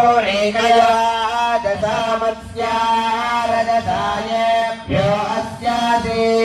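Male voices of Hindu priests chanting mantras, held notes in phrases with short breaths between them, over a steady low hum.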